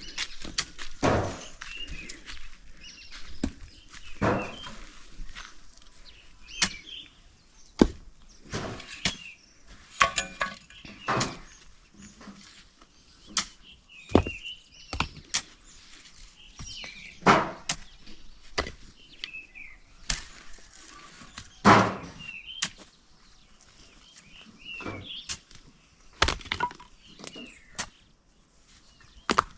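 Hardcore stones being thrown down and set in place by hand: irregular knocks and clunks of rock on rock, often a second or two apart.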